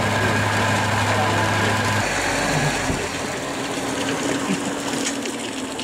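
Tractor engine running steadily with a low hum while it drives a rear-mounted rotary tiller through soil. About two seconds in, the sound switches abruptly to a quieter, higher-pitched engine hum from a JCB Fastrac driving across a wet yard.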